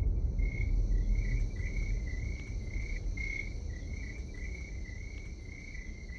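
Crickets chirping in a steady run of quick, high chirps, as night ambience. Under them a low rumble fades away.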